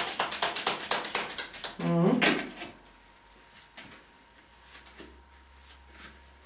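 A deck of oracle cards shuffled by hand, a rapid run of papery flicks lasting about two seconds, then a few single soft taps as cards are laid down one at a time on a wooden board.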